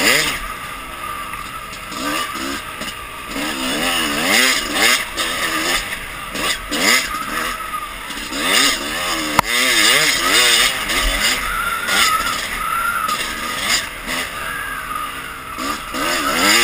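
Dirt bike engine revving up and down over and over as the rider works the throttle along a trail. There is a single sharp knock about nine seconds in.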